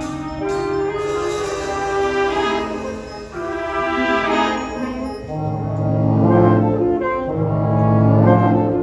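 School concert band playing held chords of woodwinds and brass. A light, high percussion ticking stops about a second in, and the low brass enters strongly about five seconds in as the band grows louder.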